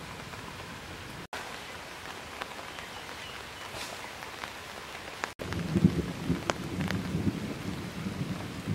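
Steady rain falling on a pond's surface, with scattered sharp drip ticks. A louder, uneven low rumble joins it about five and a half seconds in.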